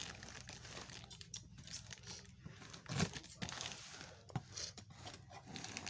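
A cardboard shipping box being cut open with a blade: packing tape tearing and cardboard rustling and scraping, with irregular crackles and a louder rip about halfway through.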